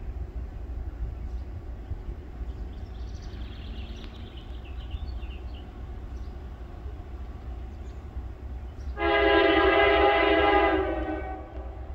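Norfolk Southern locomotive air horn sounding one long chord of about two seconds, over a low steady rumble.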